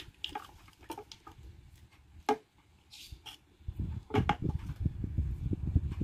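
Handling noise of snail horns: light clicks and knocks as the horns and their metal mounting brackets are moved about on a hard floor, then, from about two-thirds in, a low uneven rumbling of handling as a horn is picked up, with a few more knocks in it. The horns themselves are not sounding.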